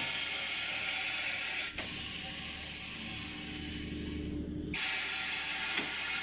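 Compressed air hissing from a pneumatic tire changer as it is worked. A click about two seconds in lowers the hiss, and it comes back stronger with a sudden step near five seconds.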